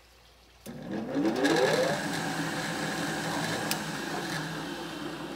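A 3000 RPM bench drill press switched on about half a second in, its motor spinning up with a rising whine for about a second, then running steadily at speed with a scooter wheel mounted in the chuck. A single sharp tick comes partway through.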